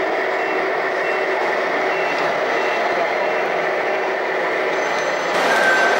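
Reversing beeps from a radio-controlled model truck's sound unit, a short high beep repeating about twice a second over a steady drone of truck sound.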